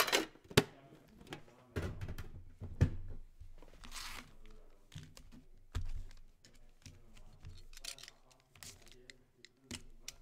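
Trading cards and card packs handled by hand: scattered taps and clicks as cards are set down and squared, with a brief rustle about four seconds in.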